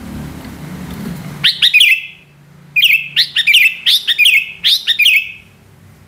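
Female greater green leafbird (cucak hijau) giving her sharp 'ngentrok' call, starting about a second and a half in: a short burst of quick notes, then after a pause a longer run of rapid repeated notes.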